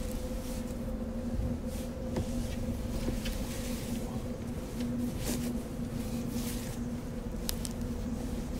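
A steady low hum over a low rumble, with scattered brief faint rustles and ticks.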